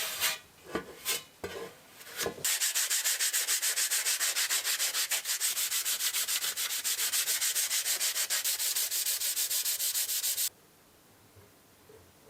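Hand abrasive work on a metal drill-press part, sanding or scrubbing. A few uneven strokes come first, then a long run of fast, even back-and-forth strokes, several a second, which stops abruptly near the end.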